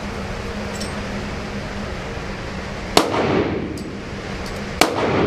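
Two gunshots about two seconds apart, each ringing briefly in the echo of an indoor range, over the range's steady ventilation hum.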